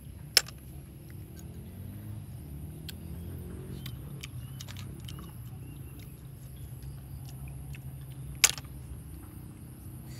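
Cooked snail shells clicking as they are handled and picked at, with two sharp clinks, one just after the start and one about two seconds before the end. A low steady hum runs underneath.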